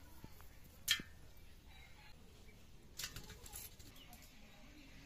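Short sharp clicks and scrapes of small fish being cut and cleaned on a boti, a curved blade fixed upright on a low stand. One sharp click about a second in, the loudest sound, and a quick run of clicks around three seconds in.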